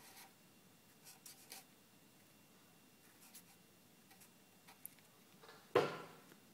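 Felt-tip marker writing on paper: a few faint, short scratching strokes, then a brief, louder sound near the end.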